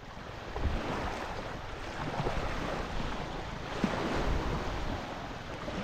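Wind on the microphone over water lapping at a reservoir shore, heard as a steady noisy rush.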